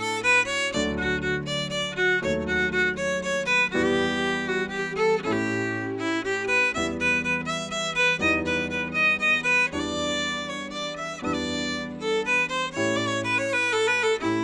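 Fiddle and digital piano playing a waltz together: the fiddle carries the bowed melody over the piano's chords, whose low bass notes change about every second and a half.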